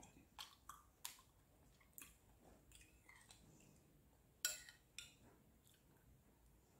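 Faint eating sounds: a metal spoon against a ceramic bowl of yogurt and soft mouth sounds, a handful of short clicks in near silence, the loudest about four and a half seconds in.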